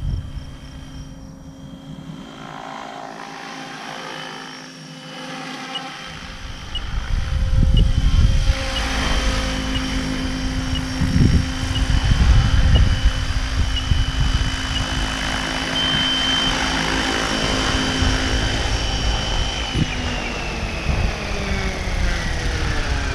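SAB Kraken 580 electric RC helicopter: the steady whine of its brushless motor and rotor blades. It is fainter at first while it flies far off and louder from about seven seconds in as it comes close. Near the end the whine falls steadily in pitch as the rotor spools down after landing.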